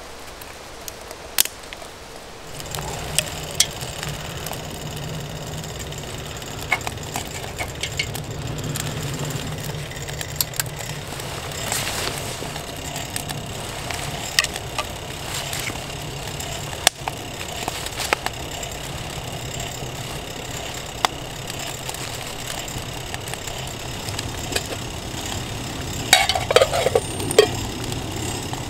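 Small wood-burning camp stove burning under a pot of water: a steady low rumble of the fire that sets in a couple of seconds in, with scattered sharp crackles. A burst of louder crackling comes near the end.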